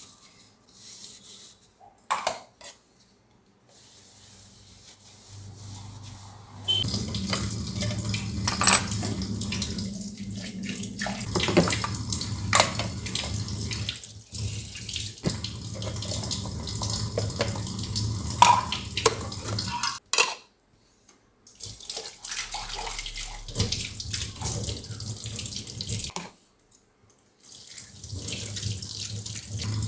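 Tap water running into a stainless steel sink while utensils are washed by hand, with knocks and clinks as they are handled. The water starts about a quarter of the way in and is shut off twice briefly in the second half.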